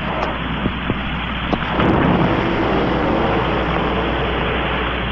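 Steady rocket-engine roar with a few faint clicks, getting louder about two seconds in.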